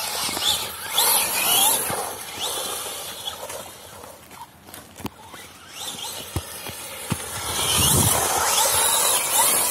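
Radio-controlled rally car driving on a gravel path: its motor whines in rising and falling glides as it speeds up, over hissing tyre and gravel noise. Loudest in the first two seconds and again from about eight seconds in, quieter in between as the car is far away.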